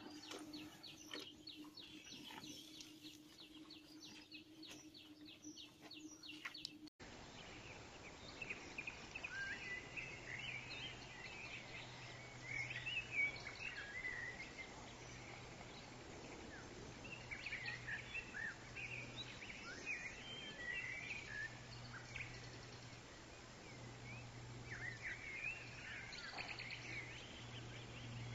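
Small birds chirping and twittering in short bursts over a faint, steady low hum. For the first several seconds there is instead a run of quick, evenly spaced high ticks over a low drone.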